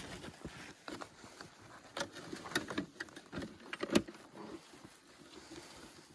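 Gloved hands working at a marten box trap on a tree: rustling of clothing and scattered knocks and clicks, the sharpest one about four seconds in.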